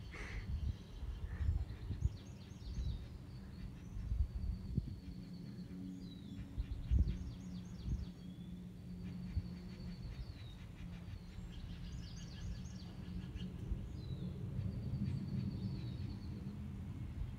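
Outdoor ambience: small songbirds calling in quick repeated trills and short whistled notes every few seconds, over a steady low hum.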